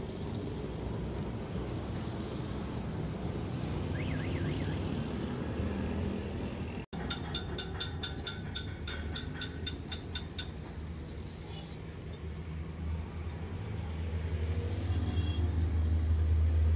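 Steady low motor-vehicle engine rumble, swelling louder near the end. A run of even ticks at about four a second sounds for a few seconds around the middle.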